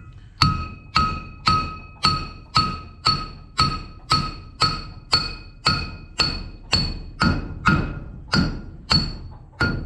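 Hammer blows on a steel corn head part, driving it along its shaft until the holes line up. The strikes are steady and evenly spaced, about two a second, and each one rings with a clear metallic tone.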